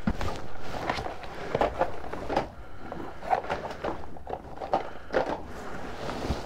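Handling noise: plastic wrap and a fabric bag rustling and crinkling, with irregular small knocks and clicks, as hands rummage among plastic-wrapped rugby balls.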